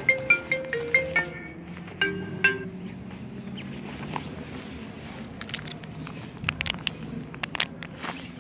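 A short marimba-like melody of plucked notes, the loudest sound, ends about two and a half seconds in. From about five and a half seconds, a run of quick wet clicks and smacks: cats chewing wet cat food off the ground.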